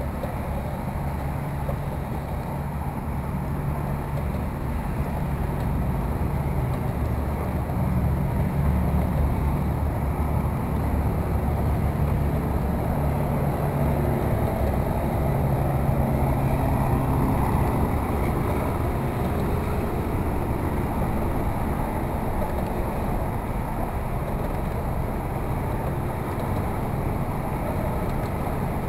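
Steady low rumble of distant engines, with a faint wavering hum, swelling a little in the middle.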